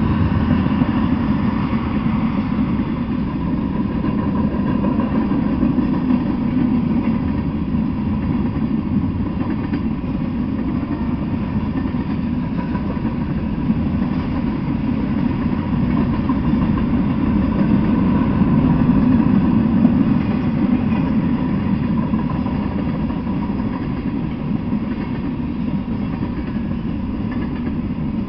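Freight train of tank cars, covered hoppers and boxcars rolling past at speed: a steady rumble of steel wheels on rail, swelling a little about two-thirds of the way through.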